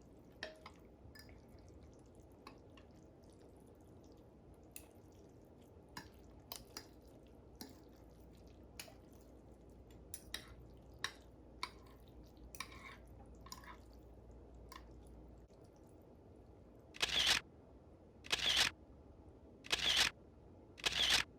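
A utensil stirring noodles coated in melted cheese in a bowl, making soft scattered clicks and wet sounds. Near the end come four short, loud breathy bursts about a second and a half apart.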